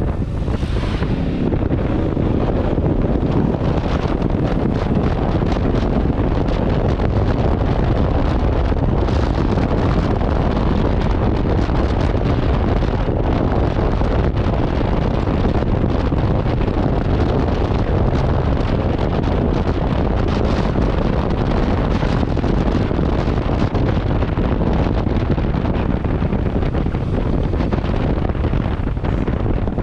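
Steady wind buffeting on the microphone of a Yamaha XMAX 300 scooter ridden at speed, with the scooter's running mixed in underneath.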